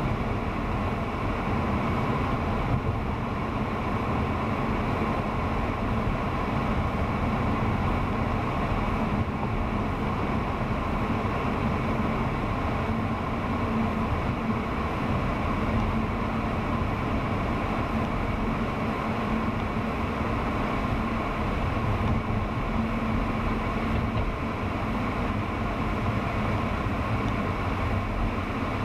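A car driving steadily, heard from inside the cabin: even road and engine noise with a faint steady hum.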